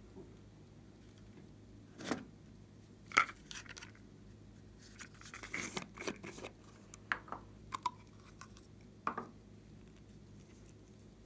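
Hands handling and opening small plastic containers and a bottle of glitter: a sharp click about three seconds in, a stretch of scraping and rattling near the middle, then a few lighter clicks.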